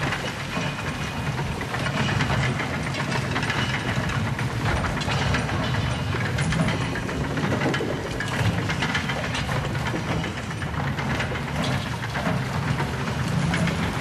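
Big Thunder Mountain Railroad ride sound effect: a steady low rumble with continuous clattering and hiss.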